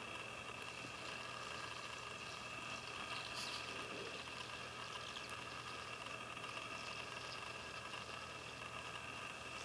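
Tiny kitten suckling milk formula from a feeding bottle, with soft wet sucking sounds over a steady background hum that carries a thin high whine.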